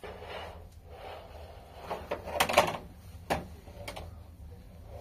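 Rustling of a child's padded jacket being pulled on, loudest about two and a half seconds in, followed by two sharp clicks, over a low steady hum.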